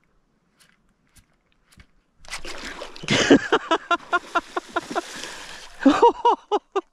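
Bass blowing up on a topwater soft-plastic lure: a sudden loud splash about three seconds in, then the hooked fish thrashing and splashing at the surface. Short excited shouts are heard over it.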